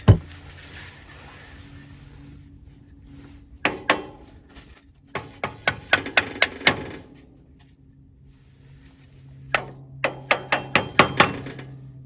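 Hammer striking a wooden block held against a sawmill engine's centrifugal clutch, knocking the clutch onto the crankshaft. One sharp knock right at the start and a pair about four seconds in, then two runs of quick taps, several a second, around the middle and near the end.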